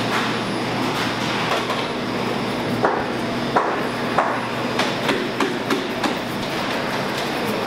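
Steady machinery noise in a confectionery factory workroom. In the middle stretch a run of about eight sharp knocks, like a tool striking a worktable, comes over some three seconds.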